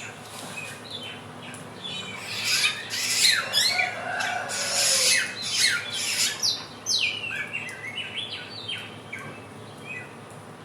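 Young samyong bird still learning its song, singing a fast, jumbled run of varied chirps and short falling whistles. The song is loudest in the middle and thins out into scattered notes near the end.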